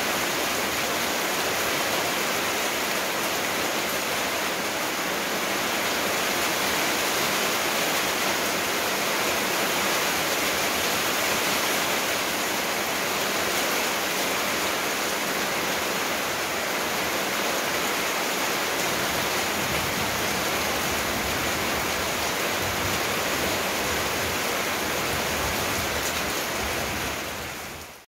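Steady, even rushing noise with no clear pitch or rhythm, fading out quickly near the end.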